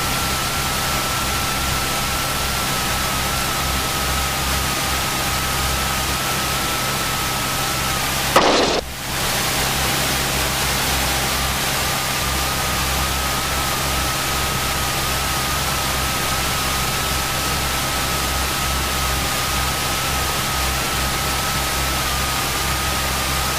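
Cessna 172's engine running steadily at low power while taxiing, a constant drone under an even hiss. There is a brief click and dropout about eight and a half seconds in.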